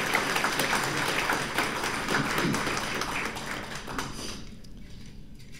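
Audience applause, a dense patter of many hands clapping that dies away about four seconds in.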